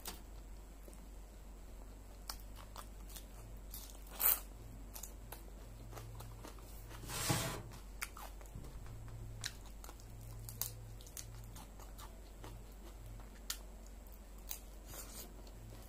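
Close-up chewing and biting of crisp raw salad vegetables: scattered crunches and small clicks, with a sharp loud crunch about four seconds in and a longer one about seven seconds in.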